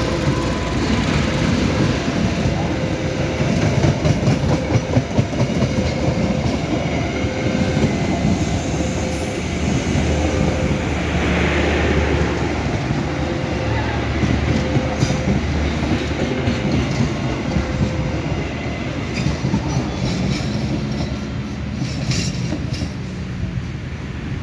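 Train running on rails: a continuous rumble with clattering wheels, and a short tone repeating about once a second.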